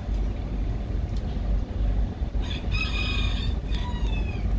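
A rooster crowing once: a single call of about two seconds, starting about halfway through and falling away at the end, over a steady low rumble.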